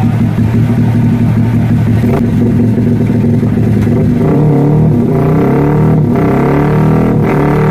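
200cc motorcycle engine running through a Pro Liner MP1 aftermarket exhaust. It holds a steady note at first, then is revved up and down from about halfway.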